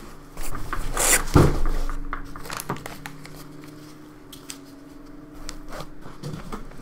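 Polystyrene foam packing and cardboard box being handled as a foam-packed 3D printer is lifted out and unpacked: rubbing, scraping and clicks, with a few knocks early, the loudest about a second and a half in. A steady low tone runs under the middle of it.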